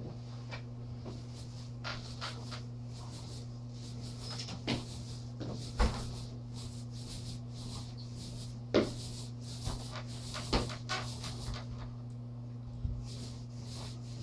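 Scattered light knocks and bumps from hand-painting work on a wall, the two loudest about six and nine seconds in, over a steady low hum.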